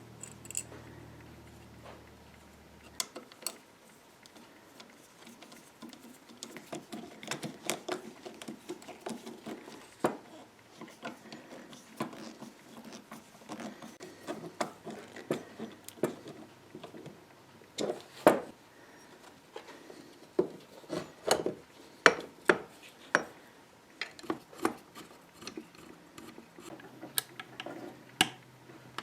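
A jigsaw being reassembled by hand: irregular clicks, knocks and rubbing as small parts are handled and fitted together, the sharpest knocks coming about two-thirds of the way through.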